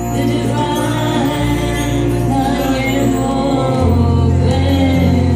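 Live kirtan: voices singing a chant over a sustained drone and low bass notes, the bass moving to a new, stronger note about four seconds in.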